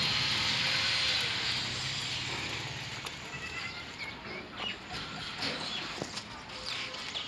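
Outdoor farmyard ambience: a steady hiss with a low hum that fades over the first couple of seconds, then scattered short high chirps and a few light clicks.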